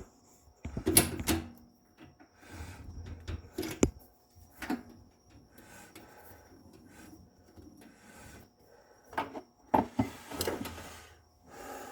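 Workbench handling noises: scattered knocks, clicks and short scrapes of tools and cue parts being picked up and set down, with a sharp knock about a second in, another near four seconds and a cluster near the end.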